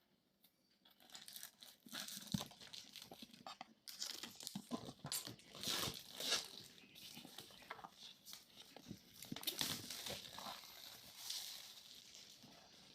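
Packaging being torn open and crinkled by hand: a continuous run of crackly rustling and ripping with scattered sharp clicks, starting about a second in and tailing off near the end.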